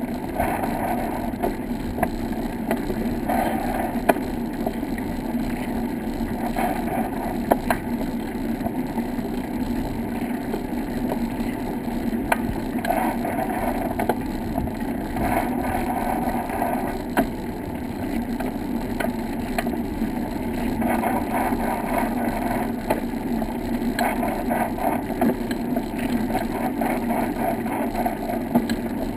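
Bicycle tyres rolling over a wooden plank boardwalk: a steady rumble with scattered sharp clicks.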